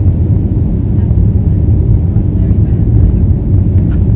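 Steady low rumble of an Airbus A321neo's engines and rushing air, heard from inside the cabin during the climb shortly after takeoff.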